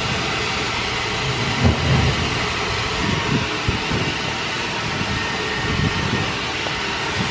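Steady hiss of a self-serve car wash pressure wand spraying a car wheel and tyre, with a few low thumps as a brush scrubs the rim.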